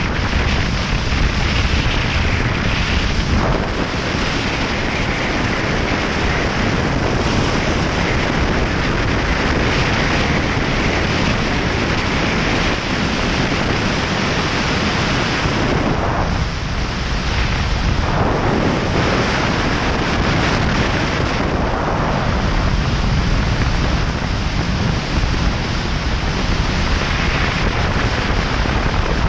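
Wind rushing over the microphone of a helmet camera on a moving motorcycle: a loud, steady rush that eases briefly a little past halfway.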